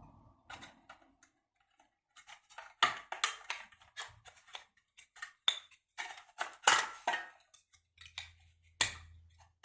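A series of irregular sharp clicks and light knocks, like small hard objects being handled, with the loudest knocks near the middle and again near the end.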